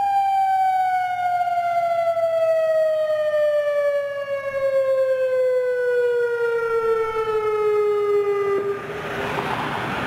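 Federal Signal Modulator outdoor warning siren winding down at the end of a test: one steady tone sliding slowly lower in pitch for about eight and a half seconds, then cutting off. A rushing hiss takes over near the end.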